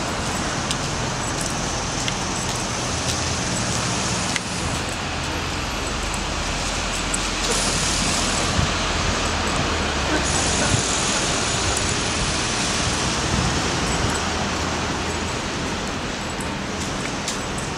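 Steady city street traffic noise: the continuous rumble and hiss of passing motor vehicles, with a few faint ticks.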